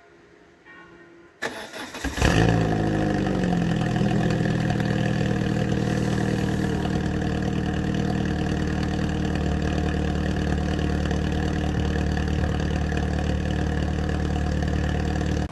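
Peugeot 206 engine cold-started through a new Magnaflow exhaust: the starter cranks about a second and a half in, the engine catches with a short flare of revs, then settles into a steady, loud idle.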